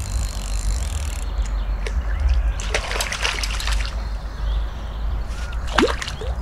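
Water sloshing and splashing against a small boat, with a steady low rumble underneath and clusters of sharper splashes about three seconds in and again near the end.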